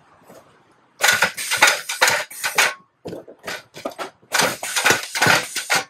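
Packing tape being pulled and pressed along a cardboard box to seal it, in a run of loud, noisy strips that start about a second in.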